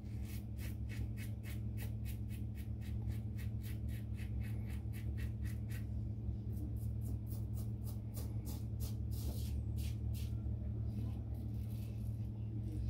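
Stainless steel safety razor scraping through lathered stubble: quick short strokes, several a second, for the first half, then fewer, longer strokes, over a steady low hum.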